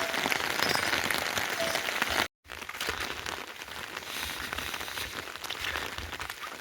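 Heavy rain falling, a dense patter of drops. About two seconds in the sound cuts out for a moment, then the rain goes on a little quieter.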